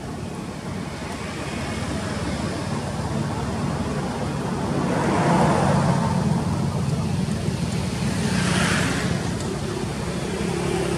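Road traffic: a steady low engine hum, with one vehicle swelling past about halfway through and another about three quarters of the way in.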